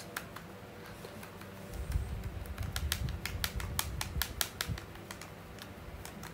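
Rapid, irregular clicking over a low rumble, densest from about two seconds in until about five seconds in.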